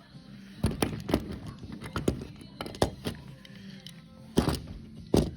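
Scattered clicks and knocks of a Farmall toy tractor being handled and set down, a sharp tap every second or so, the loudest near the end.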